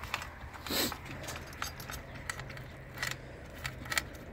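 Faint, scattered metallic clicks and jingles, with one sharper clink under a second in.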